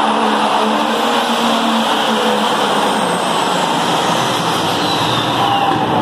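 Competition pulling tractor's engine running flat out under load as it drags a weight-transfer sled down the pulling track, a loud, steady engine sound.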